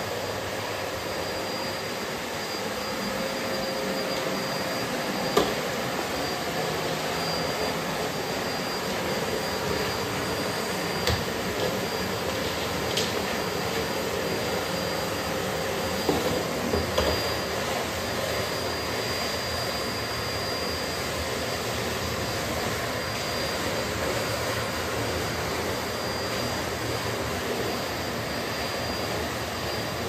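Bosch BGS21X320 bagless canister vacuum cleaner running steadily with a constant whine as its floor nozzle is pushed across a hard floor. A few short knocks are heard, around five seconds in, about eleven seconds in, and twice near the middle.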